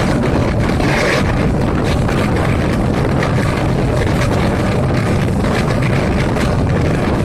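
Diesel train engine running steadily under way, a loud, even rumble.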